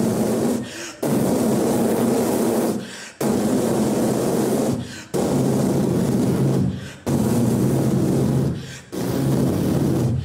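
A man's voice into a stage microphone making a loud, rough rushing noise in five blasts about two seconds apart, each starting suddenly and tailing off. It is a vocal imitation of a horse galloping flat out with the wind roaring past.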